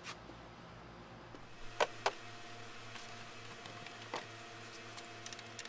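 Sharp clicks and knocks of parts and a cardboard box being handled: two close together about two seconds in, another about four seconds in, and a few light ticks near the end. A faint steady hum sets in just before the first clicks.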